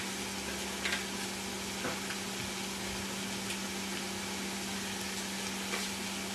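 Diced potatoes, celery, onions and cauliflower sizzling in olive oil in a stainless steel pot: a steady hiss with faint pops about one and two seconds in, over a low steady hum.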